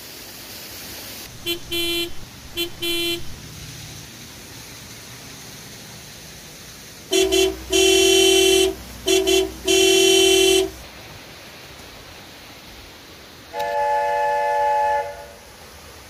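Horn honking in a set pattern: two pairs of short toots, then a louder run of four toots, the second and fourth held longer, and near the end one higher held tone.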